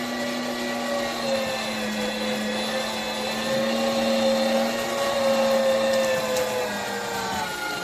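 Sunmile electric meat grinder's motor running with a steady whine, its pitch sagging slightly near the end.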